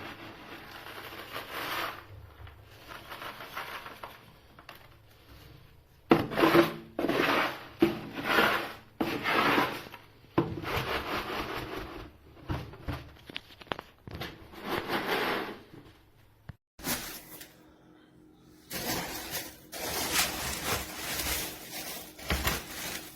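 Tofu and corn pellet cat litter being scraped and stirred in a litter box, in rough strokes about a second apart with quieter pauses between runs.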